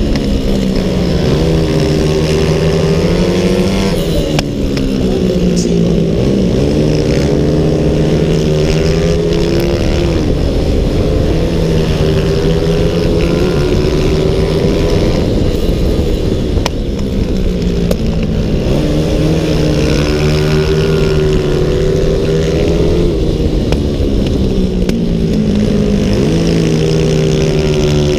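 Onboard sound of a CG 300-class race motorcycle's engine running hard at high revs, its pitch falling and climbing again several times through the lap, with wind rushing past the camera.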